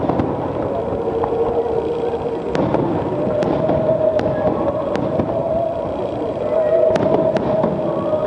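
Fireworks going off: scattered sharp cracks over a dense murmur of voices. A held tone sounds throughout and steps up in pitch about three seconds in.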